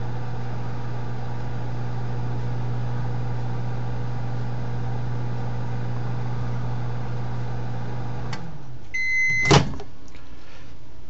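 Microwave oven running with a steady low hum, which stops about eight seconds in. A short beep follows, then a sharp click.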